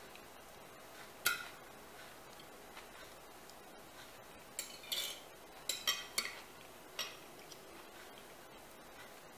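Metal knife and fork clinking against a ceramic plate while eating. There is a clink about a second in, a quick run of clinks between about four and a half and six seconds, and one more at about seven seconds.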